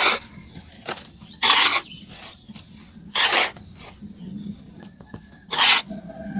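Pure charcoal being worked by hand: four short, harsh strokes about a second and a half apart.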